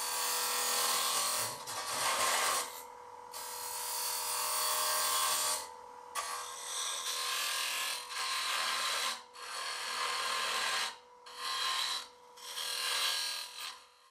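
Robert Sorby Turnmaster cutter hollowing the inside of a spinning wooden box on a wood lathe. It makes a hissing, scraping cut in about six passes with short breaks between them, over a faint steady whine.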